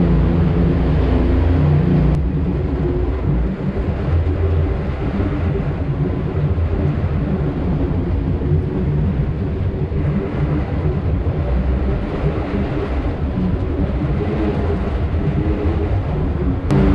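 Engine of a side-by-side UTV running steadily at low speed, with the rise and fall of light throttle as it creeps along.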